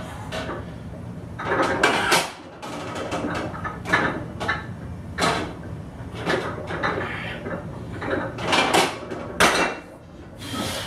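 Heavy, loud breathing: a string of hard exhales and gasps, a few seconds apart, from a lifter recovering under a loaded vertical leg press after a maximal single.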